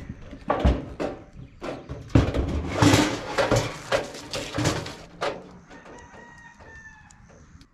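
Chickens clucking, with a rooster crowing faintly near the end. Loud rustling and knocking fill the middle.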